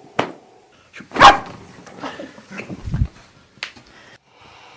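Chiropractic back adjustment on a treatment table: a sharp crack just after the start, a loud short yelp-like cry about a second in, then a deep thump near three seconds and a few lighter clicks.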